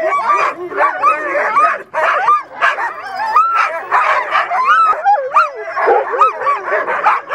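A team of sled dogs in harness barking, yipping and whining all at once: many overlapping voices with yelps that slide up and down in pitch, the excited clamour of sled dogs eager to run.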